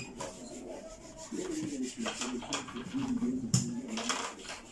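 Rubbing, scraping strokes of a nail file.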